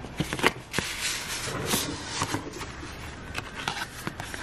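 A stiff paper envelope being opened and a thick card slid out: crisp paper rustles and small ticks, several close together in the first two seconds and a few more later.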